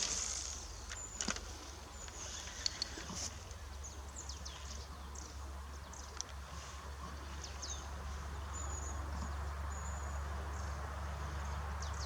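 Small birds chirping high and briefly over a steady low wind rumble, with a few sharp clicks in the first three seconds.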